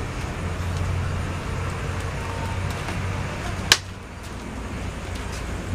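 A steady low mechanical hum, with one sharp click about two-thirds of the way through, after which the hum is weaker.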